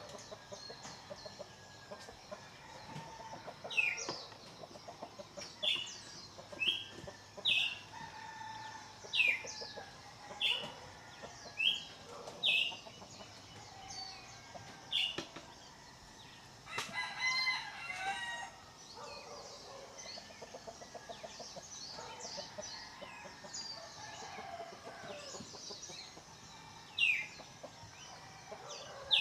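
Chickens outdoors: a rooster crows once about halfway through, and hens cluck in quick low runs near the start and after the crow. Around them, wild birds repeat short falling whistled notes, about one a second for much of the time.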